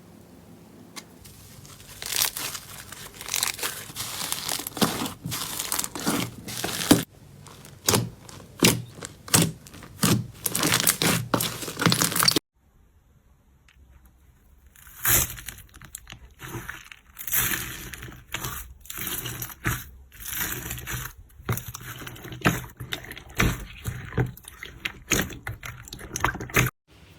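Slime being squeezed and pressed by hand, with irregular crackling and popping. The sound cuts off suddenly about twelve seconds in, then a second stretch of crackly slime handling follows.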